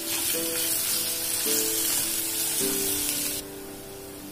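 Sliced onions sizzling in hot oil in a stainless steel wok as they are stirred with a spatula. The sizzle cuts off suddenly about three and a half seconds in, leaving background music.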